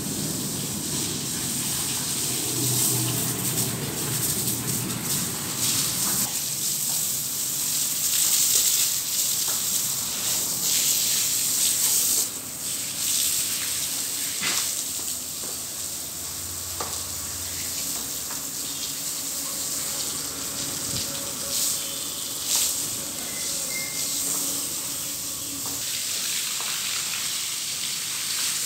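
Water spraying from a garden hose onto a wet tiled floor: a steady hissing splash that swells and eases, loudest about a third of the way through.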